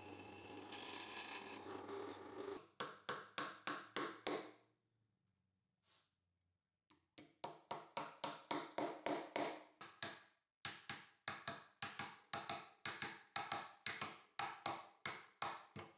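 A drill press runs, drilling into wood, for about two and a half seconds. Then a hammer taps small nails into a wooden handle: evenly spaced taps about three a second, in two runs with a pause of a couple of seconds between them.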